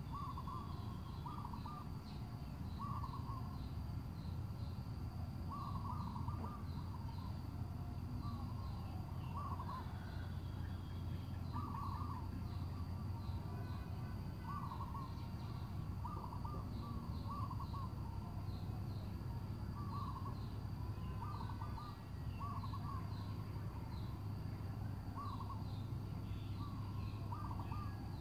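Birds calling: short hooting notes repeated every second or two, with faint higher chirps and a steady low hum underneath.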